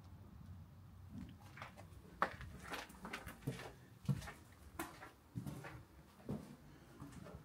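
Footsteps at a walking pace, with sharp steps about every two-thirds of a second starting about two seconds in.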